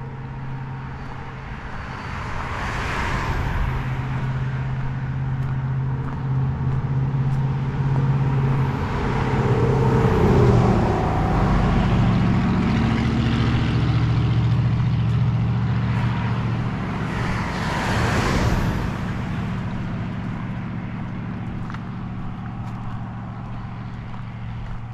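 Highway traffic passing close by: several vehicles go by in turn, their tyre noise swelling and fading, loudest around the middle, over a steady low engine hum.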